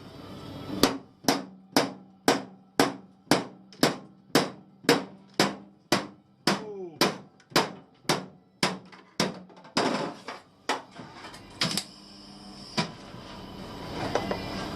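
Hammer striking metal: a steady run of about seventeen sharp blows, roughly two a second, then a few slower, uneven blows.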